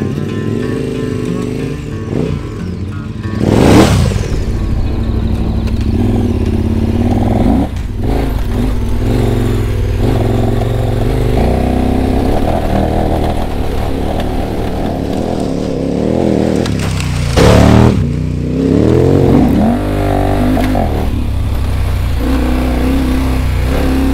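Adventure motorcycle engine running under load on a rough dirt trail, its pitch rising and falling as the throttle opens and closes. Two loud rushes of noise cut through it, about four seconds in and again around seventeen seconds in.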